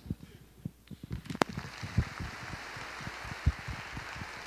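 Audience applauding: a few scattered claps at first, swelling into steady clapping about a second in.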